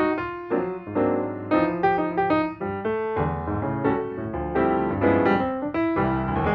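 Background piano music, a gentle melody of single notes and chords.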